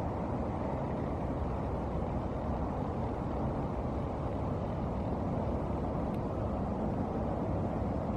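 Steady low rumbling outdoor background noise, even throughout with no distinct events.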